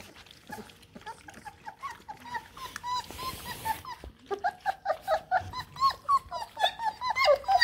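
Bluetick coonhound puppies whimpering and squeaking in short high whines while they eat from a shared dish, sparse at first and coming several a second over the second half, over faint clicking eating sounds.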